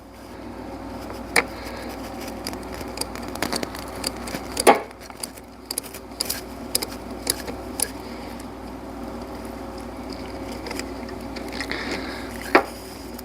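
Scattered metallic clicks, taps and clinks of hand tools working a bolt on a car battery cable terminal, with two louder knocks about five seconds in and near the end, over a steady low hum.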